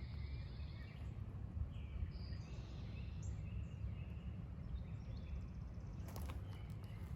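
Birds chirping and whistling in the background over a steady low rumble.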